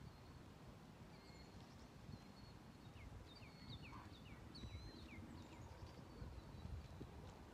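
Quiet outdoor ambience: a low, steady rumble like wind on the microphone, with faint birds chirping. A quick run of short, falling chirps comes about three to five seconds in.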